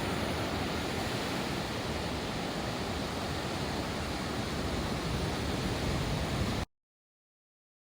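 Steady rush of ocean surf, which cuts off abruptly about six and a half seconds in.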